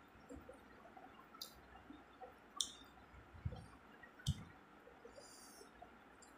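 Faint wet clicks and smacks of eating rice by hand, fingers working the food on a plate, with a few sharp clicks, two soft thumps about halfway through and a brief rustle near the end.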